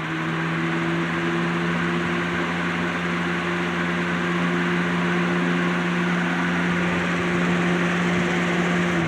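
Lasko 3733 20-inch box fan running steadily on its high speed: a rush of moving air over a steady motor hum.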